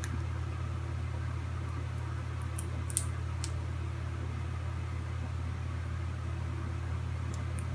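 Steady low hum of room noise, with a few faint sharp clicks about two and a half to three and a half seconds in.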